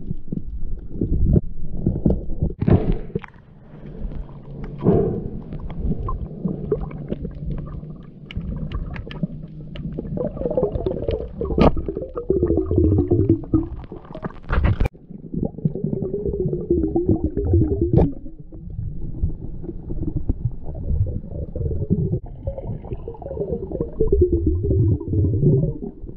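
Muffled underwater rumble and gurgling as heard by a camera underwater, with scattered knocks and clicks from the diver's movements and gear, a wavering hum now and then, and one sharp crack about fifteen seconds in.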